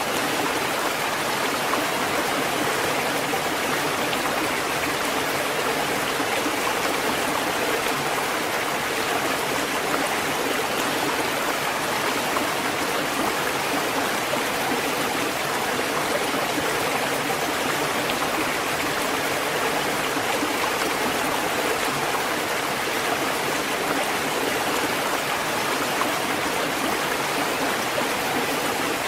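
Ocean surf: a steady, even wash of breaking waves, with no separate swells or crashes standing out.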